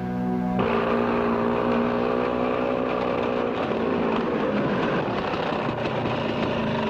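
Motor vehicle engine running steadily, cutting in suddenly about half a second in.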